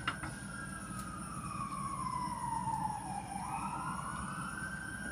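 An emergency-vehicle siren wailing: one slow wail that falls in pitch over about three seconds, then rises again.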